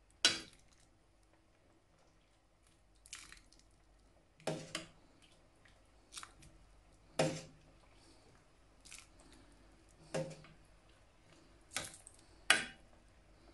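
Metal spoon knocking and scraping against a ceramic soup bowl: about nine short, sharp clinks at irregular intervals, the loudest near the start and near the end.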